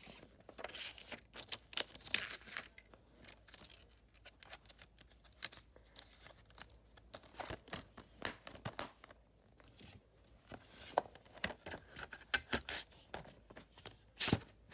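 A plastic Blu-ray case and its paper insert and packaging being handled: crinkling and rustling with many sharp clicks and snaps, busier near the end.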